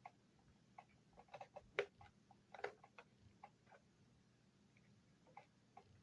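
Faint, scattered small clicks and taps from the plastic parts of a laptop's display housing being handled, the sharpest a little under two seconds in and again about two and a half seconds in.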